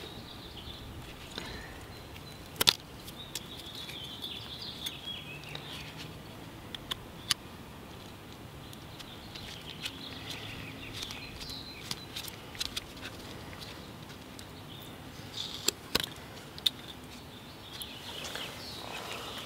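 Quiet outdoor background with a few sharp clicks and light handling noises as a small metal badge and its peeled adhesive backing are worked by gloved hands. Faint high chirps come and go.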